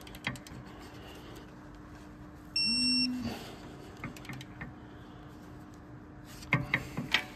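A single electronic beep of about half a second from a digital torque-angle gauge, about two and a half seconds in. Near the end comes a quick run of sharp clicks and knocks from the tools at the brake.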